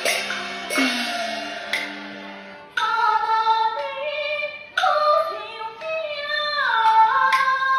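Gezai opera performance: a few ringing percussion strokes, then a high female voice singing a drawn-out aria phrase that steps between held notes.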